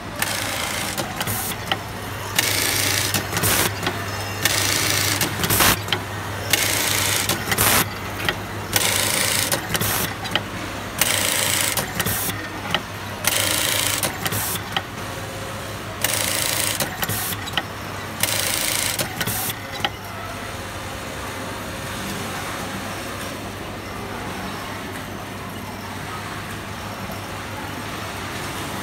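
Industrial button-sewing machine with an automatic button feeder sewing on buttons: a short burst of fast stitching about every two seconds, one per button, over a steady low hum. The bursts stop about two-thirds of the way through, leaving only the even hum.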